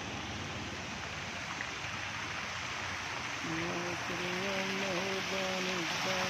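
Park fountain jets splashing into a pool: a steady rush of falling water. About halfway through, long held pitched notes come in over it.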